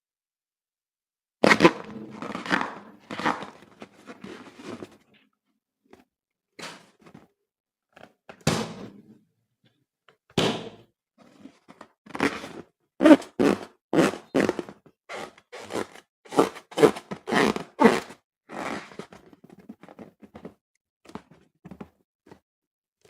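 Slime being handled: irregular soft thuds and squishes, starting suddenly about a second and a half in, a few scattered ones, then a quicker run of about two a second in the middle, thinning out near the end.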